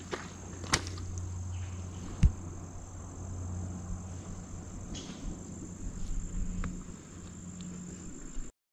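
Insects trilling in one steady, high, unbroken tone, with a few footsteps on the trail. The sound cuts off suddenly near the end.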